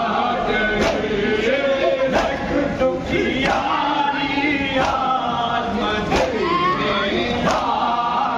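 A group of men chanting a Shia noha in unison, with regular chest-beating (matam) slaps from the crowd about once every second and a bit.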